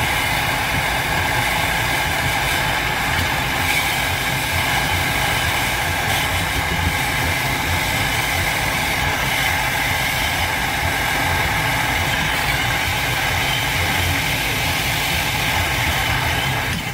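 Handheld gas torch burning steadily, a constant rushing hiss with a low rumble underneath, as its flame heats a copper sweat fitting on the water heater piping.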